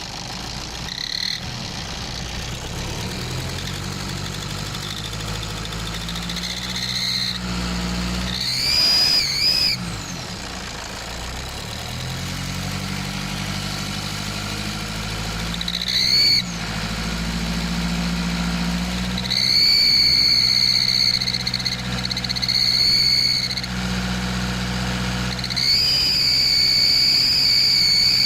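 Nissan Patrol ZD30 diesel engine being revved repeatedly, each rev bringing in a loud, piercing high-pitched squeal that is brief at first and held for several seconds on the later revs. The squeal is of a kind often taken for a turbo, but the mechanic suspects an exhaust leak at the right-hand exhaust manifold, where he found soot buildup and fresh sealer.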